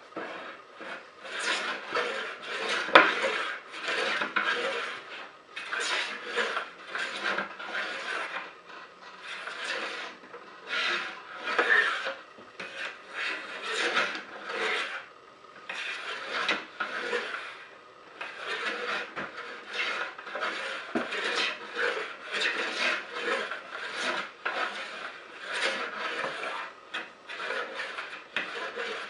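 Hand plane shaving a wooden board in repeated rasping strokes, about one to two a second, planing the top of a box lid down into a curve.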